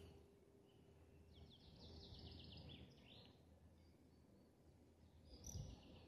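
Near silence with faint songbird song: a quick trill of about a dozen high notes, about a second and a half long, starting a little over a second in, and another short call near the end.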